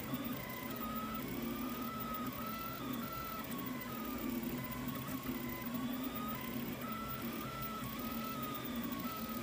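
Delta 3D printer printing: the stepper motors give a whine that shifts up and down in pitch as the print head changes moves, over a steady hum.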